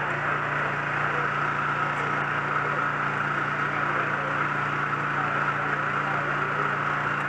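An engine running steadily, a constant low hum with a steady higher whine over it and no change in speed.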